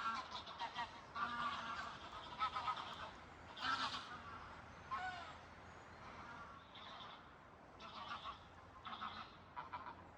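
Birds calling repeatedly: a series of short calls about a second apart, loudest near the start.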